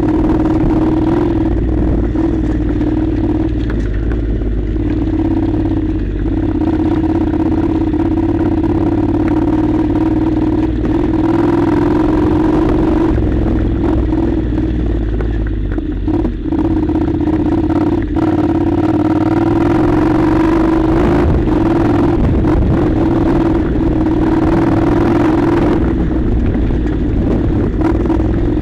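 Honda NC700's parallel-twin engine running at a steady, low speed while riding a rough gravel track, with knocks and rattles from stones and the bike jolting over the surface, and wind rumble on the microphone.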